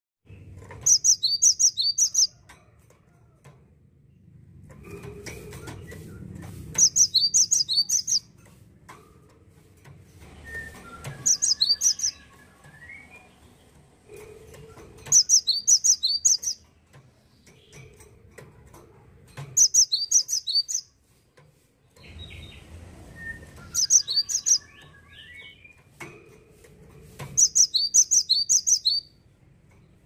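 Cinereous tit singing: loud bursts of quick, high repeated notes, each burst about a second long, coming roughly every four seconds.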